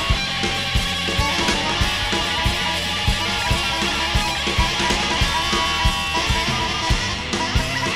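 Free-jazz/noise rock band recording: dense, distorted electric guitar over busy, driving drums and bass, with steady, evenly recurring drum hits.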